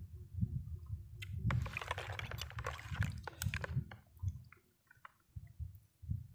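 A metal spoon stirring and scooping through ice and liquid in a plastic basin of iced avocado and young-coconut drink, with clinks of ice and sloshing, mostly in the middle, among soft chewing sounds.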